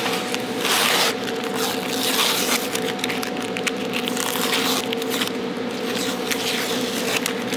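Sandpaper rubbed by hand over a workpiece in quick, irregular scraping strokes, over a steady low hum.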